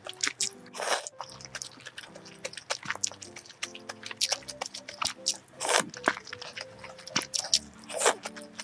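Close-miked eating: a person chewing and biting food, with many short wet clicks and three longer, louder swishy sounds, about a second in, near six seconds and near the end. Soft background music with held notes runs underneath.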